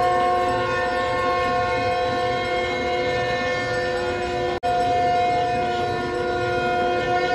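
Several conch shells (shankh) blown together in long held notes, their different pitches overlapping into one continuous horn-like blare. The sound drops out for a split second about four and a half seconds in, then carries on.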